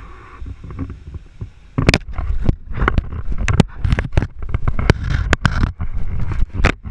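An alligator's jaws clamping on a small action camera. A heavy low rumble of the camera being jostled, then from about two seconds in a rapid, irregular run of sharp knocks and scrapes as the teeth work on the camera housing.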